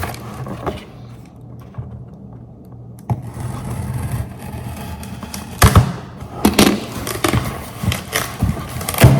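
Scraping and knocking as an automatic trash can is handled and unpacked, quiet for the first few seconds, then busier with sharp knocks about halfway and near the end.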